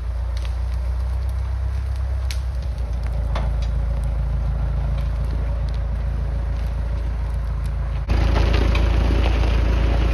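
Massey Ferguson tractor running steadily to power a Farmi winch, while the winched logs drag through brush with scattered sharp snaps and cracks of twigs. About eight seconds in the engine becomes abruptly louder.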